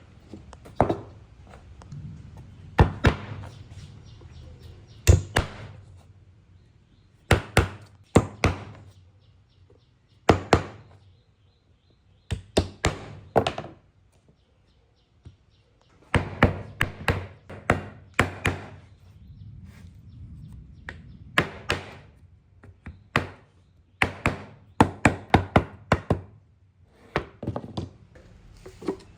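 Irregular series of sharp hammer blows on wood, struck in quick groups of two to five with short pauses between.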